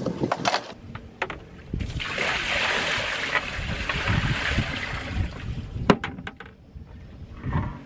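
Dishes and a pot clinking in a plastic bucket, then a bucket of dishwater poured out over the side of the boat, splashing for about three seconds. A couple of sharp knocks follow as the bucket is set down.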